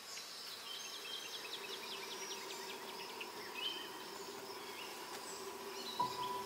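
Faint outdoor ambience: insects and birds chirping in quick series over a low steady hum, with a soft steady tone coming in near the end.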